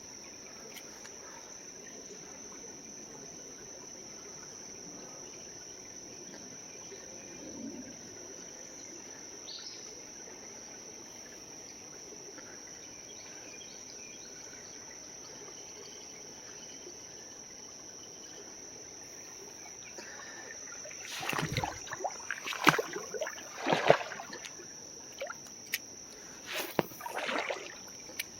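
Insects giving one steady, high-pitched drone over the quiet sound of a creek. About 21 seconds in, a run of louder, irregular scuffing and splashing noises starts and lasts for several seconds.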